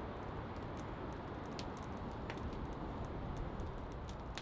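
Wood fire crackling, with a few irregular sharp pops over a steady low rumble.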